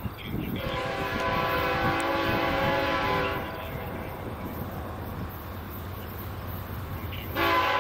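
Freight locomotive's air horn sounding a chord in one long blast, then a short blast starting near the end, over the low rumble of the train.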